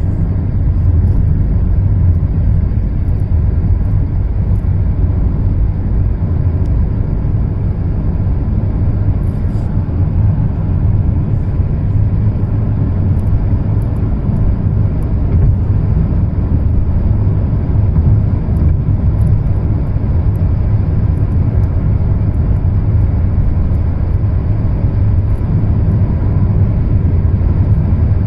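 Steady low rumble of road and wind noise inside a moving car's cabin at highway speed, unchanging throughout.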